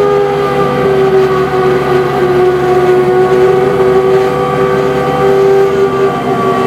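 80-horsepower engine of a 15-inch gauge miniature diesel locomotive pulling hard up a grade, its hydraulic drive giving a steady whine over the engine noise.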